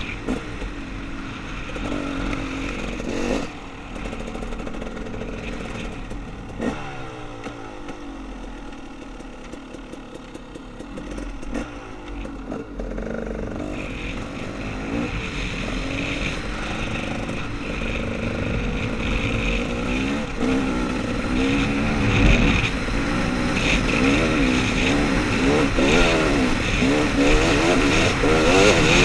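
Off-road dirt bike engine revving up and down on a woods trail, with scattered knocks and clatter. About a third of the way in the revs fall away and it runs quieter for a few seconds, then it revs harder and louder toward the end.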